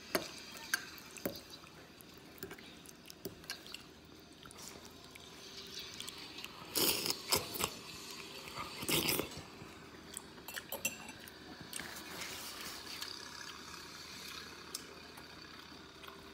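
Metal spoon clinking and scraping against a ceramic soup bowl, with liquid sounds from the broth. There are scattered sharp clicks throughout, and two louder noisy bursts about seven and nine seconds in.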